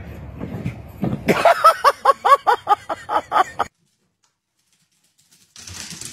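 A dog barking in a rapid run of about a dozen high-pitched yaps, about five a second, that cuts off suddenly.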